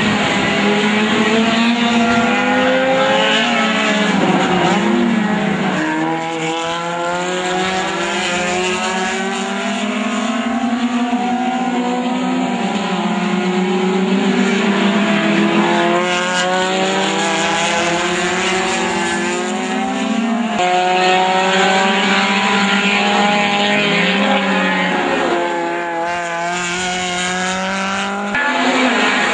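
Race cars' engines, mostly VW Gol and Gacel touring cars, running hard around the circuit. The pitch climbs steadily and then drops back at each gear change, several times over.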